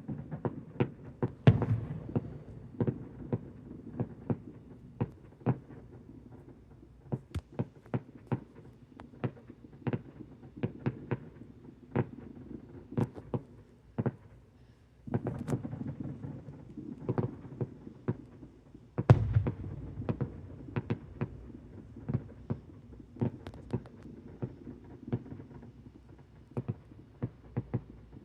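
Fireworks going off: a rapid, irregular run of sharp pops and bangs over a low rumble. Heavier volleys come about a second and a half in, around fifteen seconds in, and about nineteen seconds in, the last being the loudest.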